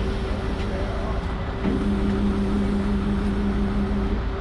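A vehicle engine running steadily with a low rumble and a constant hum; a second, lower drone joins a little under two seconds in and stops shortly before the end.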